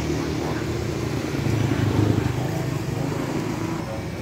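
Motor vehicle engine passing on a nearby road, a low rumble that swells about two seconds in and then fades.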